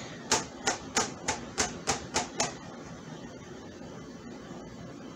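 Kitchen knife chopping frozen garlic cloves on a plastic cutting board: quick, even taps of the blade on the board, about three a second, stopping about halfway through.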